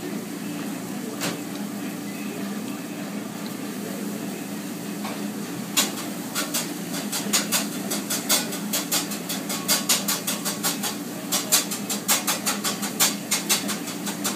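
A steady low mechanical hum throughout. From about six seconds in, quick irregular crinkling clicks, several a second, as a paper and plastic food wrapper around a wrap is handled.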